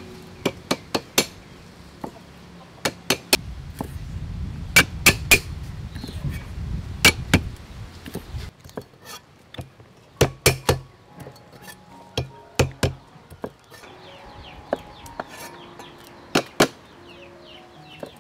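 Kitchen knife chopping yardlong beans on a round wooden chopping block: sharp, irregular knocks, often in quick runs of two or three.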